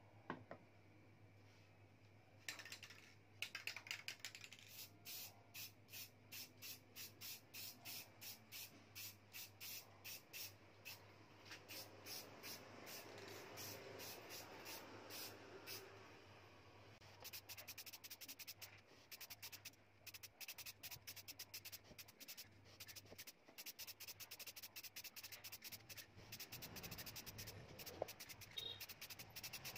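Aerosol spray can hissing in short repeated bursts onto a wooden box, about one and a half bursts a second at first. A steadier spell of spraying comes in the middle, and quicker, denser bursts follow later.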